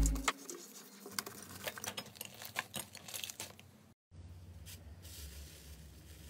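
Hands squeezing and kneading foamy slime, making a quick run of small sticky crackles and pops. After a brief break about four seconds in, fainter soft stretching and tearing sounds as cotton-textured slime is peeled up.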